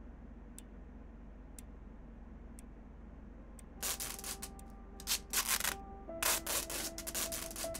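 An analogue clock ticking faintly, once a second. From about four seconds in, repeated rasping strips of packing tape are pulled off a hand dispenser, over music with held notes.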